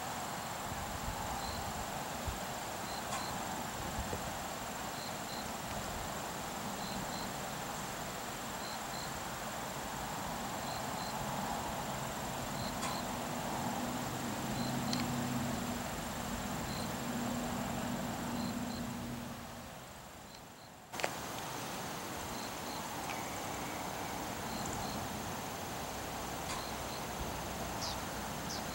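Crickets chirping in a steady chorus: a constant high trill with short paired chirps every second or so. A faint low hum comes in midway, and the sound dips briefly and comes back with a click.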